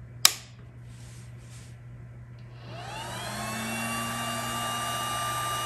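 A click, then the Snapmaker 2.0 power module's small cooling fan spinning up: a whine rises in pitch about three seconds in and settles into a steady, really loud high-pitched drone.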